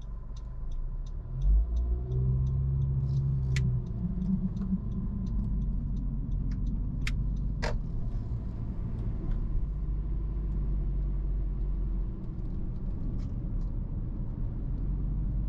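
Car engine and road rumble heard from inside the cabin, the engine swelling and rising in pitch about two seconds in as the car accelerates. A turn-signal indicator ticks steadily through the first half, then stops.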